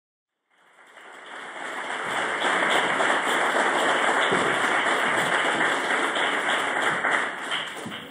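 Audience applauding: the clapping swells up over the first couple of seconds, holds steady, and dies away near the end.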